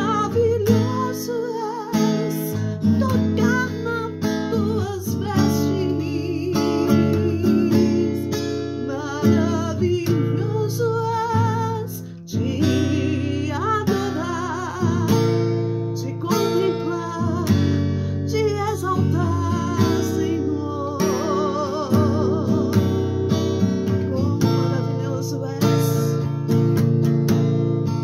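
A woman singing a slow devotional song with vibrato, accompanying herself by strumming chords on a classical acoustic guitar.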